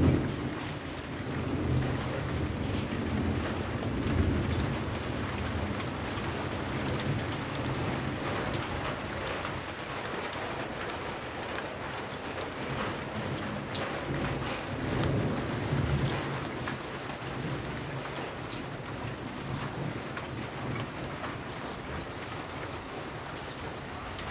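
Steady heavy rain falling, with low rolling thunder rumbling through the first few seconds and again a little past halfway.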